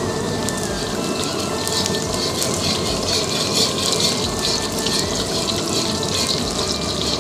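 Minced garlic sizzling and crackling in hot oil in a steel wok, stirred with a metal ladle.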